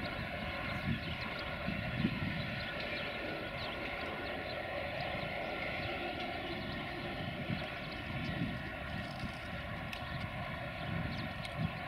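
Freight train rolling away along the track: a steady drone from the 060-DA diesel-electric locomotive hauling it, over a low rumble of the wagons' wheels, with a few faint clicks near the end.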